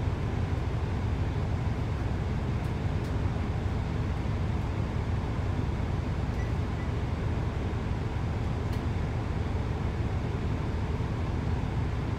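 Inside the carriage of a Class 165 Networker Turbo diesel multiple unit: a steady low rumble from the train's underfloor diesel engine and running gear, with a few faint clicks.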